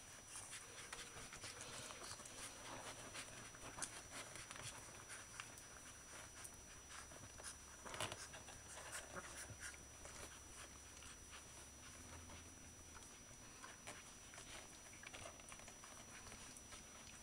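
Faint sounds of 16-day-old whippet puppies nursing and squirming against their mother: many small suckling clicks and rustles of the blanket, with a louder scuffle about eight seconds in.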